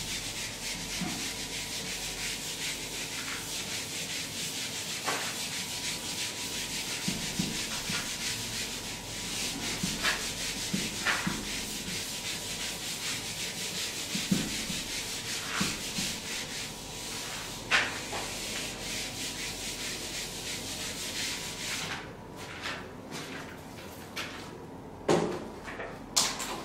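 Whiteboard eraser rubbing across a whiteboard in continuous wiping strokes, a dry scrubbing hiss that stops about four seconds before the end, followed by a few light knocks.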